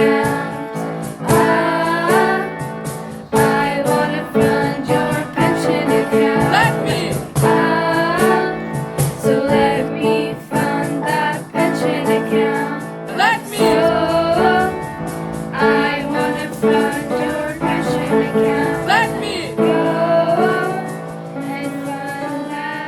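Music: a song with a singing voice carried over instrumental accompaniment, with sustained chords and regular note attacks.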